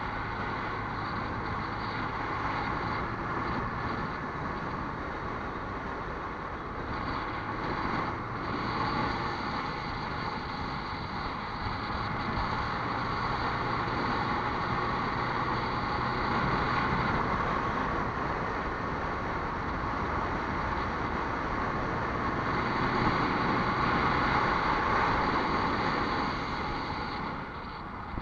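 Motor vehicle on the move: a steady running noise with a low hum, growing louder in the second half.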